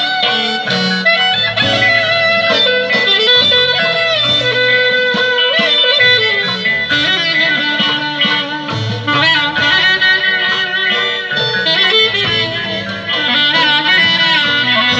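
Live Greek folk band playing: a clarinet carries a winding, sliding melody over electric guitar and drums.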